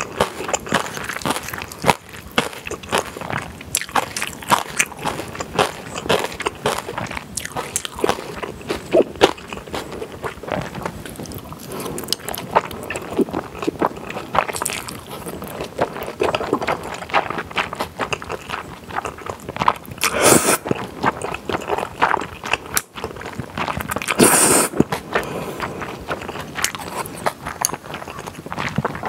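Close-miked eating of black bean sauce noodles: steady wet chewing and mouth clicks, with two louder slurps of noodles in the last third.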